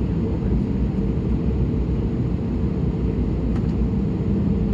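Airbus A320neo cabin noise on the ground before take-off: a steady low rumble of the running engines and air systems, with a constant hum and one faint click partway through.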